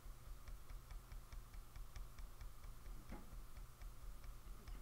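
Faint, quick, even ticking, several ticks a second, over a low steady hum.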